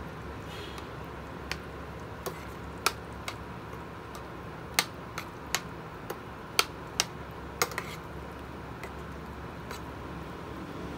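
A metal spoon stirring beans in tomato sauce in a stainless steel pan, clinking sharply against the pan about a dozen times at irregular intervals, over a low steady hum.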